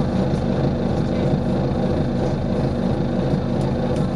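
Volvo B9TL double-decker bus's six-cylinder diesel engine running steadily, with a low, even drone.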